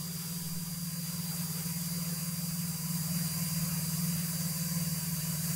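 Steady drone of a light single-engine plane's piston engine and propeller at flying power, heard from inside the cockpit, with an even hiss laid over it.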